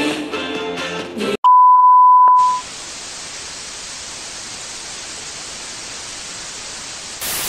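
Music stops abruptly, followed by a loud steady beep like a test tone lasting about a second. Then comes an even television-static hiss, which gets louder near the end.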